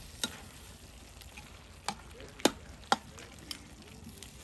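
Food frying and sizzling in a pot while it is stirred, with a utensil knocking sharply against the pot about five times, loudest about two and a half seconds in.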